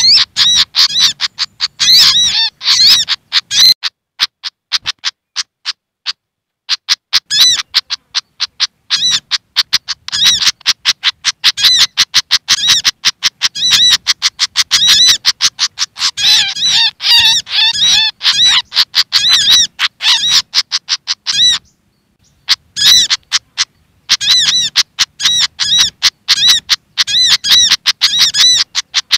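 Agitated alarm chatter of a pied fantail (sikatan kipas) mixed with agitated sogok ontong calls, played as a bird-luring recording: rapid, sharp, high chips repeating several times a second. There are short pauses about five seconds in and again about 22 seconds in.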